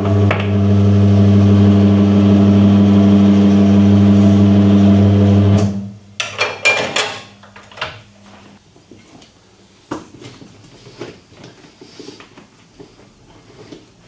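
Tyre-changing machine's electric motor running with a loud, steady hum as its turntable turns a motorcycle wheel to carry the tyre bead over the rim, stopping suddenly about six seconds in. A burst of metallic clanks follows, then a few lighter knocks of tyre and tools.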